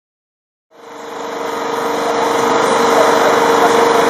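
A steady engine drone at a constant pitch, fading in about a second in and then holding steady and loud.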